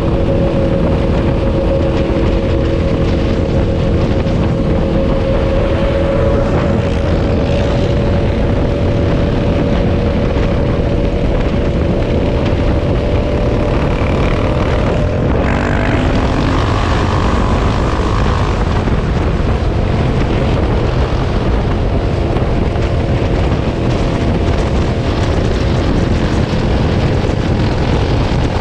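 Sport quad (ATV) engine running steadily under way, its drone holding one pitch and then changing pitch about halfway through.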